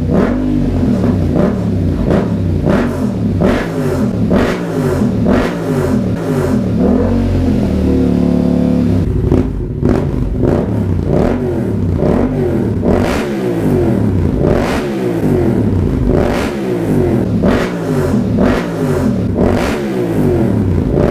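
Yamaha MT-07's parallel-twin engine revved over and over through an aftermarket slip-on exhaust, the pitch rising and falling with each blip of the throttle. It drops to a steady idle for about a second around the middle, then the quick revs resume.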